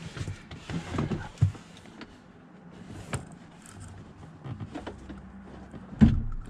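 Scattered knocks, clicks and rustling of someone moving about and climbing out of a van, with a heavier thump about six seconds in.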